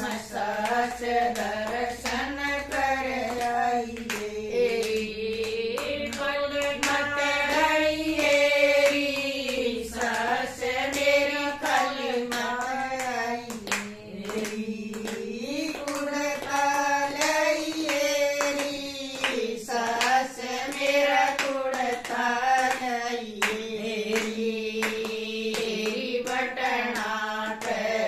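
A group of women singing a Haryanvi devotional bhajan together, keeping time with steady hand-clapping.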